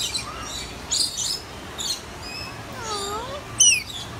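Rainbow lorikeets chirping in short, high, scratchy calls, with a lower swooping note about three seconds in and one loud falling screech near the end.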